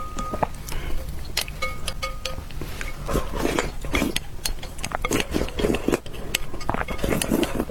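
Close-miked eating of spicy fire noodles: rapid chewing, wet mouth smacks and slurps, with many quick clicks of utensils against the dish.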